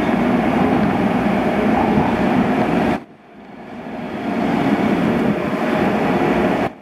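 Low, noisy rumble of a car in a vehicle inspection bay, amplified by the hall. It cuts off abruptly about three seconds in, then builds up again as the taxi rolls out of the bay, and cuts off abruptly just before the end.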